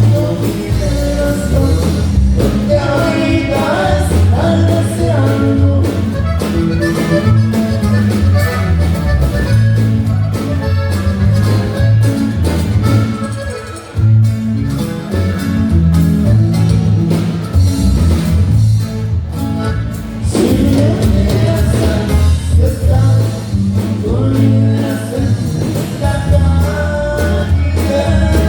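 Norteño band music: a steady bass line with melody and singing over it.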